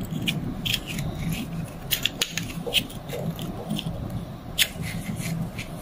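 Light clicks and scrapes of a vacuum pump's steel rotor and its vanes being handled and fitted together in gloved hands, over a low steady hum.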